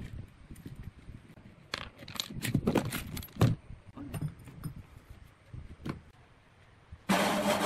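Small metal hardware (nuts, washers and a threaded rod with scooter wheels) clinking and clicking against a wooden workbench, a quick cluster of sharp clinks about two to three and a half seconds in and a few single ones later. Near the end a woodworking machine's motor comes in suddenly, running with a steady hum.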